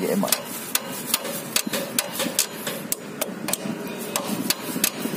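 Rapid sharp clicks or taps repeating about four times a second.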